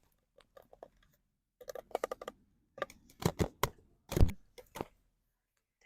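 Irregular clicks and knocks of cooking utensils and cookware being handled, in small clusters, with the loudest knock a little past the middle.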